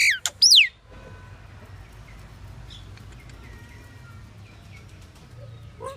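Pied myna (Asian pied starling) giving a few loud whistled calls that sweep downward in pitch in the first second. A lull with faint distant chirps over a low background rumble follows, and the myna starts calling again near the end.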